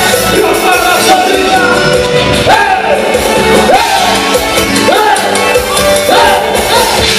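Live band playing Latin dance music on amplified electric guitars, bass guitar and drum kit. A bright sliding phrase rises and falls about once a second from a couple of seconds in.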